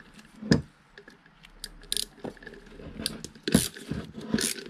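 Ratchet wrench clicking as it turns the screw of a clutch-spring compressor on a transmission clutch drum, with a few separate metal clicks at first and a denser run of ratchet strokes from about three seconds in.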